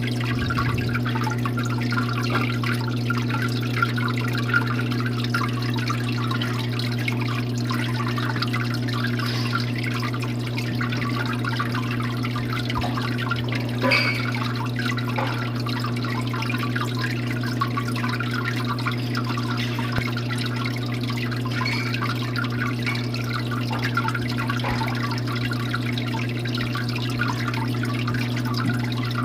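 Waterfall: water falling and splashing steadily, with a fine dripping, trickling texture and one brief louder splash about halfway through.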